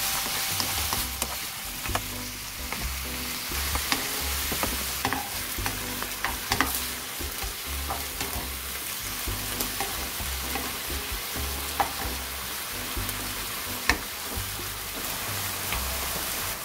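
Chicken gizzards sizzling steadily as they fry in oil in a pan, with scattered sharp clicks from a utensil stirring them against the pan.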